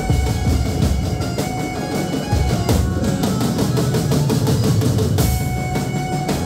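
Loud dance music with a steady drum beat and held melody notes.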